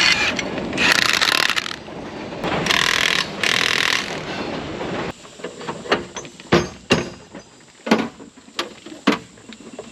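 Machinery running with metallic squealing and grinding for about five seconds, then cutting off suddenly; after that, a series of separate knocks and clicks.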